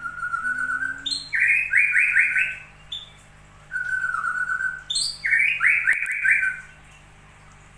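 A bird singing a repeated phrase: a steady whistled note, then a quick run of four or five higher notes, the phrase given twice.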